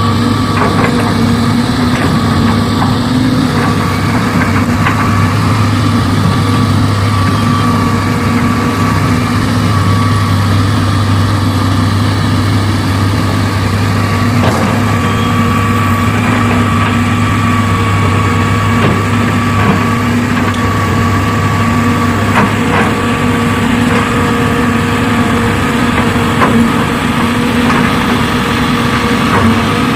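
Heavy diesel engine running steadily with an even hum, and occasional faint knocks over it.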